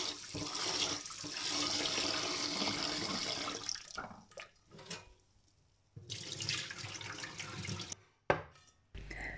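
Kitchen tap water running into a pot of rice as the rice is rubbed clean by hand; the flow stops about four seconds in. A shorter stretch of water sound follows, then a single sharp knock near the end.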